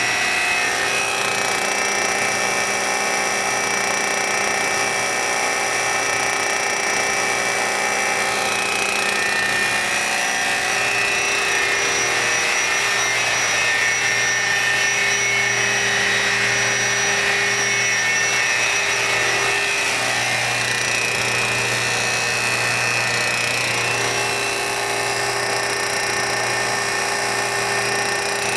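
Large industrial machinery running steadily: a continuous loud hum with a high whine and several steady tones, the whine growing stronger around the middle.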